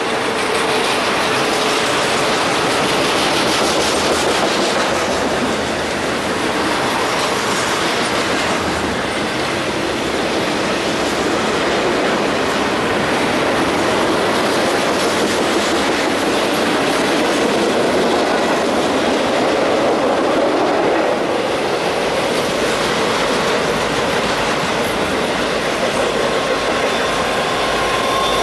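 Intermodal freight train's container-carrying well cars rolling steadily past, a continuous noise of steel wheels on the rails.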